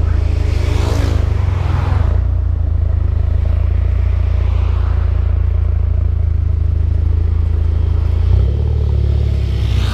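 Turbocharged 2.0-litre four-cylinder of a Mk6 Jetta GLI with aftermarket intake, downpipe and cat-back exhaust, running with a deep steady drone. It is revved briefly about a second in and again near the end, each rev carrying a short rush of air.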